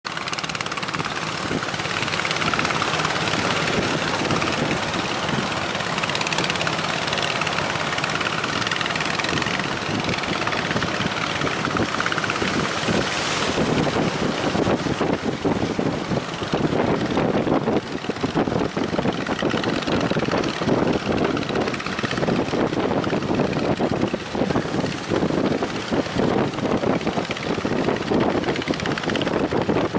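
Strong wind buffeting the microphone: a loud, continuous rush that turns into rapid, irregular flutter from about halfway through.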